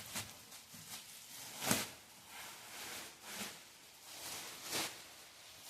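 Plastic packaging rustling and crinkling as an unboxed electric fireplace is handled, in a string of short rustles with two sharper ones about two and five seconds in.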